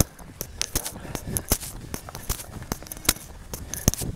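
Running footsteps of two trail runners descending a dirt forest path: quick, uneven footfalls, about three to four a second.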